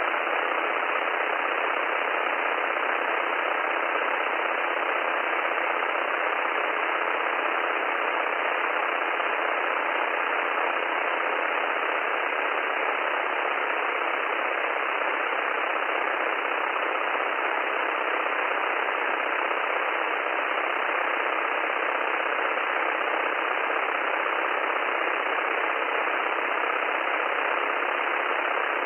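Steady rushing noise of a SportCruiser light aircraft's engine and cabin, heard through the headset intercom feed during taxi. It sounds thin, like sound over a radio, and stays even throughout.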